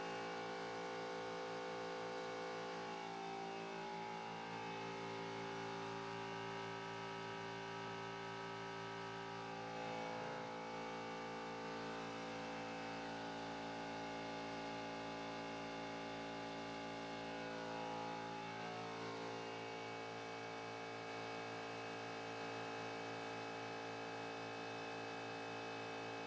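Philips Assembleon CSM 60V pick-and-place machine powered up, giving a steady hum and whir made of many held tones, a few of which shift briefly in pitch now and then.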